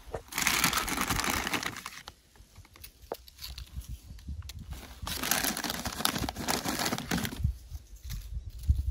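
Food packaging crinkling in two spells of about two seconds each, with a few small clicks between them.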